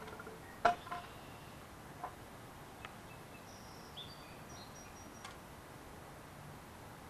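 A wooden board knocking as a toddler picks it up: one sharp knock about a second in, then a few lighter knocks. A few faint high chirps sound in the middle.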